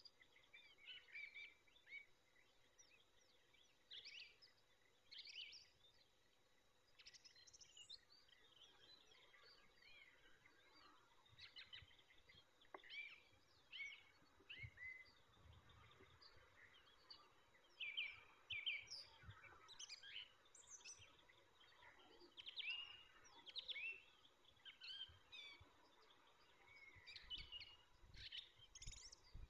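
Faint background birdsong: many short, scattered chirps and brief trills from small songbirds, coming and going without a steady rhythm.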